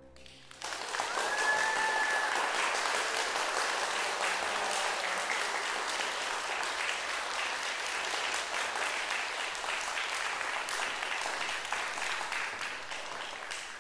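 Concert audience applauding, starting about half a second in after a brief hush at the end of the music, with a single held high-pitched call above the clapping near the start. The applause thins and fades near the end.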